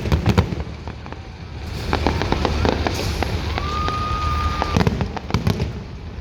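Fireworks display going off: a rapid run of bangs and crackles, thickest at the start and again near the end, over a steady low rumble, with one steady high tone lasting about a second midway.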